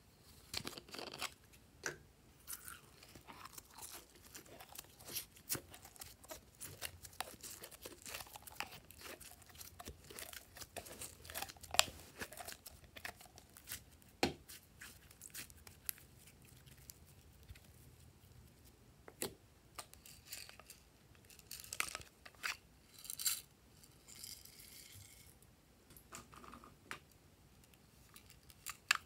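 Slime squeezed and squished by hand, with irregular sticky crackles and small pops that are busiest in the first half and come in scattered bursts later. A few sharp clicks from a hard plastic case being handled near the end.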